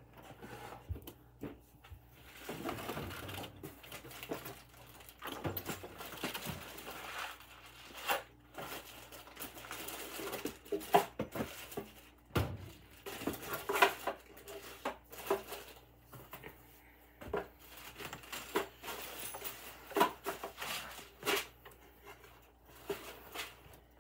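Irregular knocks, clatters and rustling of small items being handled and put into wooden storage boxes.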